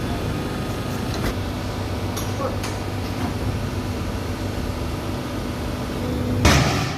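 Metalworking machine running with a steady low hum and a held tone, a few light clicks, and a sudden loud noisy burst near the end.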